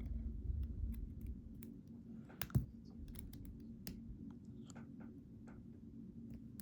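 Scattered light clicks and taps of a tool working on a Mul-T-Lock Interactive lock core as it is taken apart, with one sharper click about two and a half seconds in.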